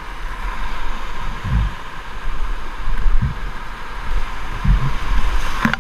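Steady rush of whitewater rapids around a paddle raft, with a few low thumps on the microphone and a sharp knock near the end.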